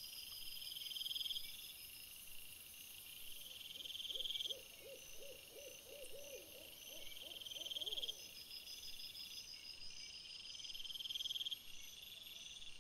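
Night insects, crickets, chirping steadily, with a louder swelling trill about every two seconds. Midway there is a fainter rapid series of about a dozen short hooting notes, about three a second.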